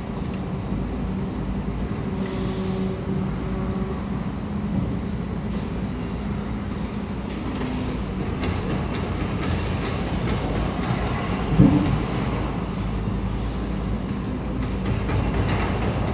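Heavy construction machinery running steadily: a low diesel engine rumble with scattered metallic clanks, and a brief loud low sound about two-thirds of the way through.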